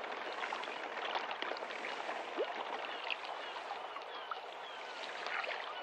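Steady water ambience, a hiss of flowing and lapping canal water, with scattered small ticks and faint short chirps over it.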